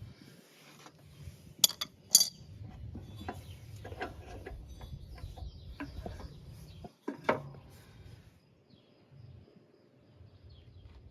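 Metal tools and mower-deck parts clinking and knocking, with three sharper knocks standing out among lighter clinks, as a pulley and its belt guard are worked off.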